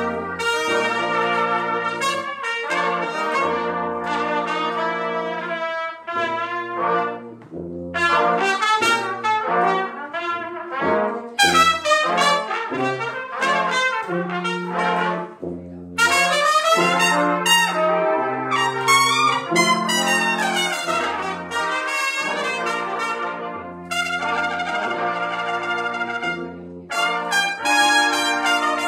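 Live brass ensemble of trumpets, French horn, trombone and tuba playing a piece together, the tuba's bass line under the trumpets. The music moves in phrases with short breaks between them.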